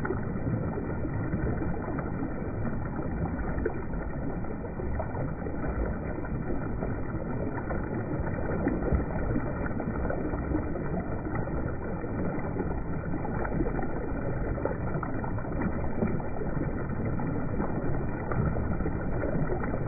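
Fast, muddy river current churning and splashing where it breaks white against a rocky bank, a steady rush without let-up.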